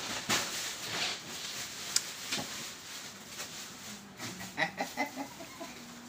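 Plastic bag rustling, with scattered knocks and shuffles and a sharp click about two seconds in. From about four seconds in comes a quick run of short pitched calls, ending in a steady low tone.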